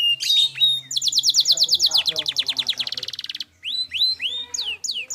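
Domestic canary singing: a fast trill of repeated falling notes that speeds up, then a short break and a few slower rising and falling whistles.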